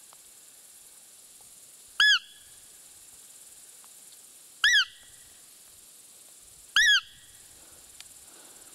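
Roe deer call (manok) blown three times: short, squeaky piping notes that rise and fall in pitch, about two, five and seven seconds in. They imitate a roe doe's squeak to draw a roe buck during the rut.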